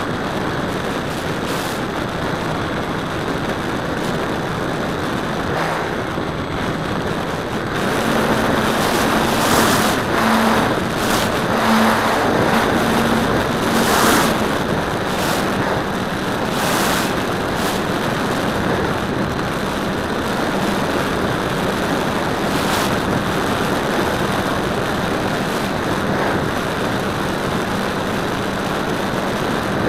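Radio-controlled model airplane in flight, recorded from the airframe: a steady rush of wind and propeller wash over a faint motor-and-propeller drone. For several seconds in the middle the drone gets louder and slightly higher, with short gusts of wind noise.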